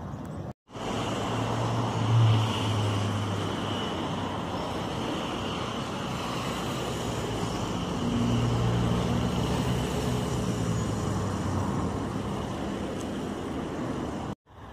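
Road traffic passing close by: a steady rush of cars with engine hum. One vehicle passes loudest about two seconds in, and others pass from about eight seconds.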